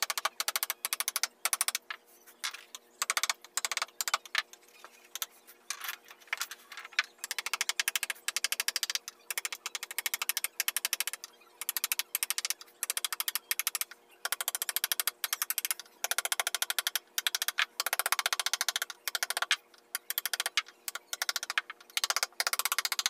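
A small hammer taps a carving chisel into a wooden panel in rapid light strokes, several a second, in runs with short pauses between them.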